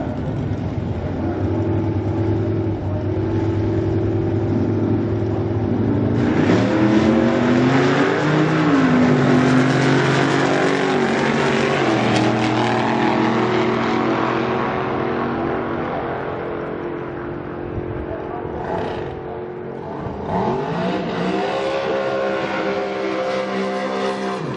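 Drag race cars idling at the start line, then launching about six seconds in at full throttle. Engine pitch climbs and steps down at each gear shift as the cars pull away down the strip and fade. Near the end an engine revs up and climbs in pitch again.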